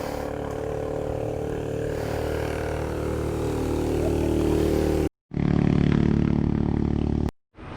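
Yamaha Mio i 125 scooter's small single-cylinder engine running steadily, slowly getting louder. It cuts out twice for a moment, and is louder after the first break.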